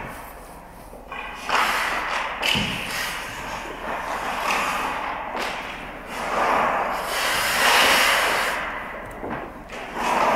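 Ice hockey sticks and pucks on rink ice: sticks tapping and slapping pucks and skate blades scraping over the ice, with one heavier thud about two and a half seconds in.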